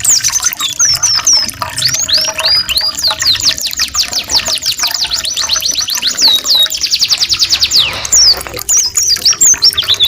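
Canary and white-eye (pleci) song mixed as a training recording: clear, high falling whistles strung into fast rolling trills, the densest roll running for several seconds in the middle and breaking off briefly near the end. A faint trickling-water effect runs underneath.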